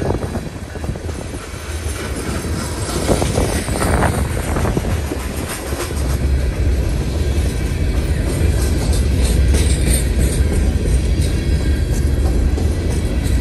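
Freight train's coal hopper cars rolling past close by: a steady low rumble of steel wheels on rail, with clicks over the rail joints. Sharp metallic clanks and brief squeals come through about two thirds of the way in.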